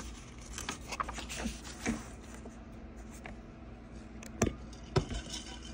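Pages of a paperback graphic novel being turned and handled: soft paper rustles, with two sharper clicks near the end.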